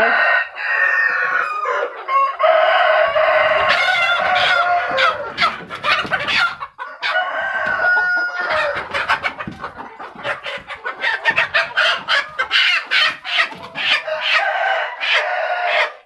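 Kampung chickens clucking and squawking, with a long rooster crow about three seconds in.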